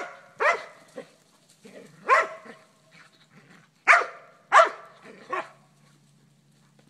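American pit bull terrier barking: five loud barks with softer ones in between, stopping about five and a half seconds in. It is play barking, meant to goad a pony into a game of chase.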